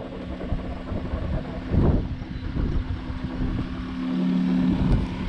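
A motor running steadily with a two-note hum, which gets louder about four seconds in. A brief knock about two seconds in.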